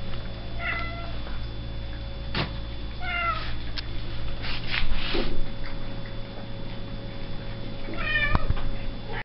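A cat meowing three times: once about a second in, again around three seconds, and once more near the end. Between the calls come a few knocks, the loudest around five seconds, over a steady low hum.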